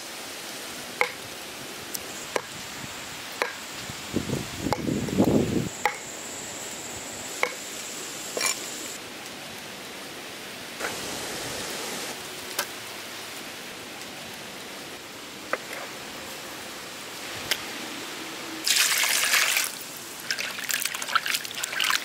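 Water trickling and dripping as the octopus is washed by hand, with scattered small drips and taps. Near the end comes a louder rush of splashing water.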